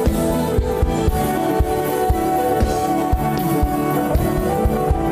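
Music with a steady drumbeat, about two beats a second, under held chords.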